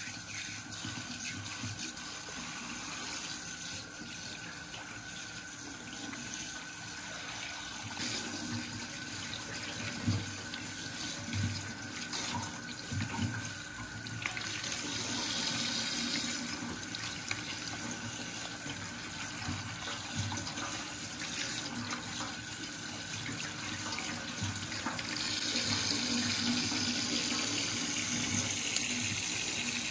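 Kitchen tap running into a sink while bunches of leafy greens are rinsed by hand under the stream, a steady splashing flow. It gets louder about halfway through and again near the end, with a few light knocks in between.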